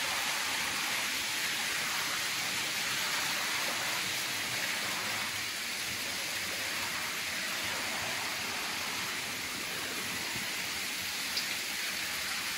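Creek water tumbling in a small cascade between granite boulders: a steady, splashing rush.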